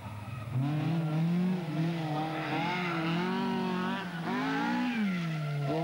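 Opel Manta 400 rally car's engine revving hard, its pitch climbing and falling over and over as the driver lifts and changes gear, with sharp drops about half a second in, near four seconds and again near the end.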